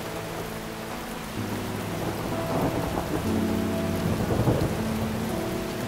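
Steady rain hiss under soft background music of sustained chords that change every second or two.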